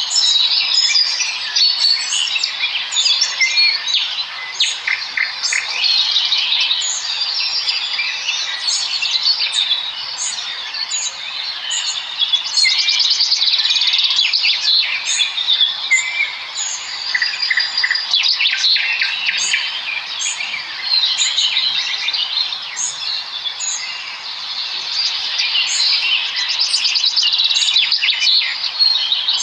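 A flock of small birds chirping and chittering together: a dense, unbroken chorus of many overlapping high chirps and trills.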